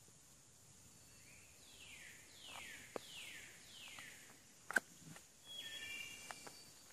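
A songbird singing a run of four clear whistles, each sliding down in pitch, then a few short higher notes about a second later, over a faint steady hiss. A sharp knock a little before five seconds in is the loudest sound, with a few softer taps around it.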